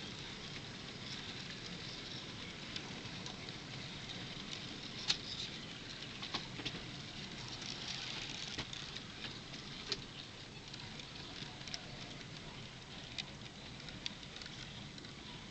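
N scale auto-rack and hi-cube freight cars rolling past on a curve. Their small metal wheels make a steady light rattle on the track, broken by irregular sharp clicks, the loudest about five seconds in.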